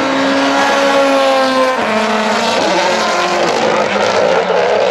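Mini Countryman JCW rally car engine at full throttle, its pitch rising through a gear, then a sharp drop at a gearshift about two seconds in, and it pulls again.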